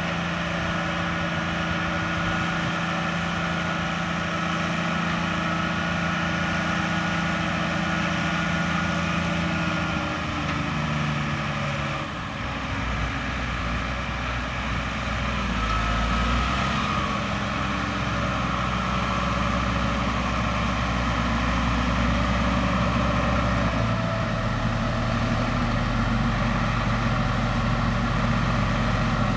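Case IH Steiger 500 Quadtrac's 12.9-litre diesel engine running steadily while pulling a five-furrow plough. About ten seconds in, the engine note drops in pitch and a deeper rumble takes over.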